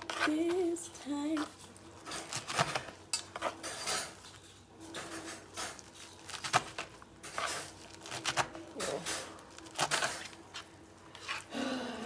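Kitchen knife chopping leafy greens on a wooden cutting board: irregular, quick knocks of the blade against the board, coming in short runs.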